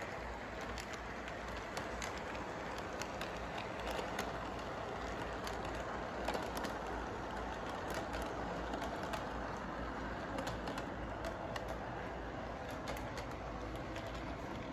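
Model electric train running around its track: a steady rolling rumble from the locomotive and cars, with many short irregular clicks from the wheels on the track.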